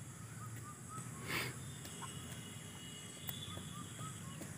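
Faint outdoor ambience: insects droning steadily and a bird chirping softly a handful of times, with a brief hiss about a second and a half in.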